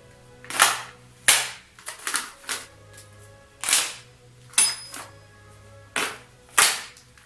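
Sharp knocks and snaps of office-chair parts being pressed and fitted together, about eight at uneven intervals, over faint background music.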